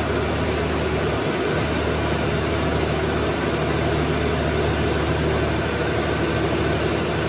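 Ricardo R6105IZLD six-cylinder diesel engine of a 120 kW generator set running steadily under electrical load, an even, unbroken running sound.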